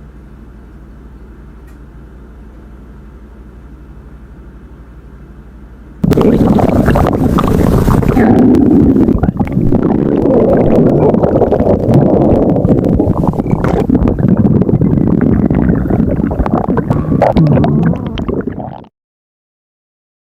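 Stomach growling: a faint low rumble, then about six seconds in a loud, long growl that cuts off suddenly about a second and a half before the end.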